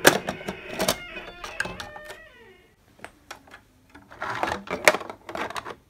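Plastic toy stable doors being handled: sharp clicks and knocks as the stall doors are swung open and shut, with rustling and clicking again near the end.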